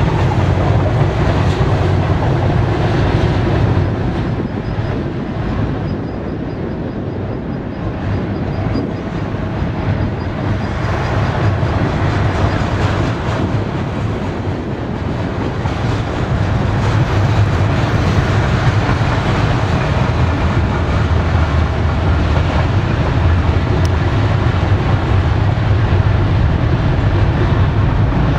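BNSF double-stack intermodal well cars rolling past, steel wheels on rail making a steady low rumble. It eases a little for several seconds in the first half, then builds again.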